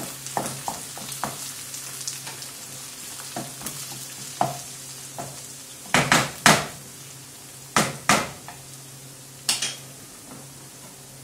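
Diced carrots, green peppers and onion sizzling in a frying pan while a wooden spoon stirs them, with small clicks of the spoon. Several loud scrapes of the spoon across the pan come between about six and ten seconds in.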